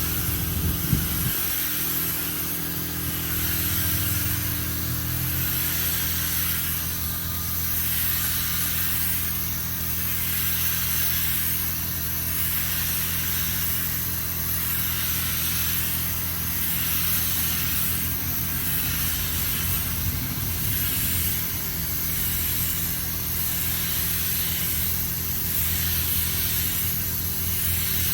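Paint spray gun hissing in even pulses, swelling and fading about every two seconds, over a steady motor hum.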